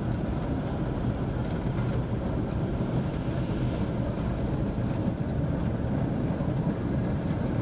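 Steady low rumble of tanks' engines and tracks as a column of tanks crosses a pontoon bridge.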